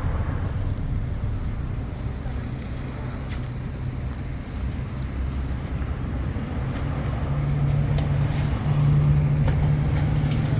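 Steady low motor rumble with a hum that rises in pitch and grows louder about seven seconds in.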